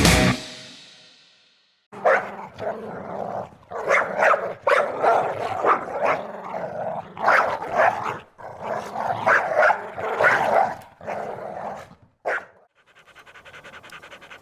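A dog barking repeatedly in a long string of short, loud barks, then panting quietly near the end.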